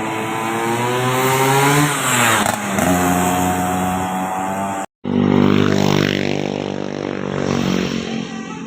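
Large bus engines passing close by. The first one's engine note climbs, then drops sharply about two and a half seconds in. After an abrupt cut near the middle, a second engine note falls steadily.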